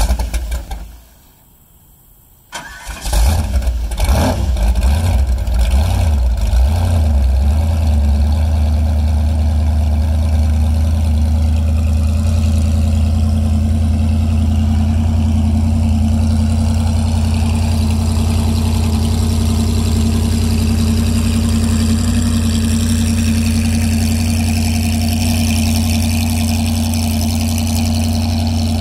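Freshly rebuilt 427 big-block Chevrolet V8 with a 6-71 supercharger in a jet boat starting up. After a brief first burst it fires and catches about two and a half seconds in, runs unevenly for a few seconds, then settles into a loud, steady idle.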